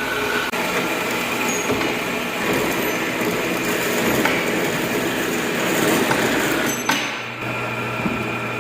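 Metal-cutting bandsaw cutting through a stack of steel angle iron, a steady motor hum under the rasping noise of the blade in the steel. A single sharp clink about seven seconds in, after which the saw keeps running.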